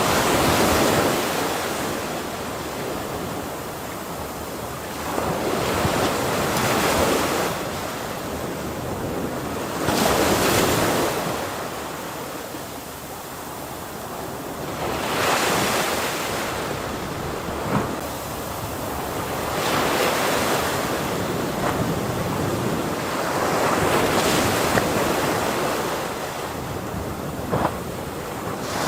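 Ocean waves breaking on a shore: a continuous rush of surf that swells and ebbs every four to six seconds, with wind noise on the microphone.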